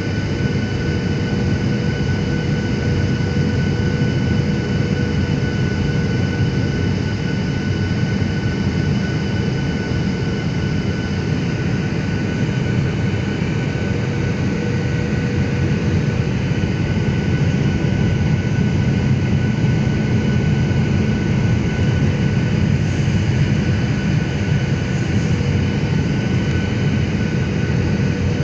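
Cabin noise of a jet airliner in flight: a steady rush of engine and airflow noise with a few constant whining tones over it.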